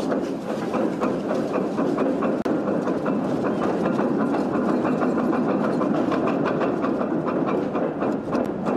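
Aircraft carrier's anchor chain running out through the hawse pipe as the anchor is let go, the links clattering in a fast, even rhythm.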